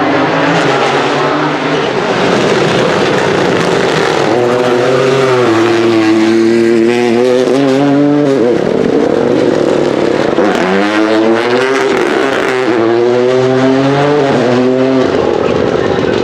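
Rally car engine revving hard under acceleration. The pitch climbs about four seconds in, drops off around eight and a half seconds, then climbs again a couple of seconds later.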